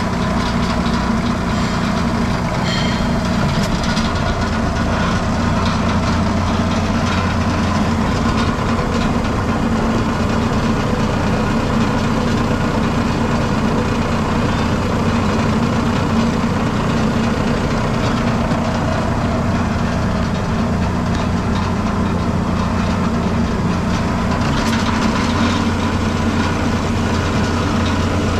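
RandBright HD-100 centerless grinder/polisher running steadily: a constant machine hum with a few light ticks about three seconds in and again near the end.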